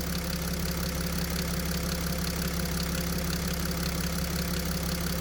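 Mercedes-Benz OM642 V6 diesel idling steadily, with a faint light ticking over the even running.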